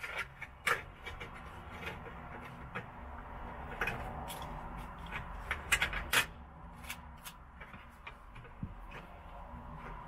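A wire coat hanger being worked by hand into the roof channel and pillar of a VW bay-window van, giving scattered sharp clicks, scrapes and rubbing, with a burst of louder clicks about four to six seconds in.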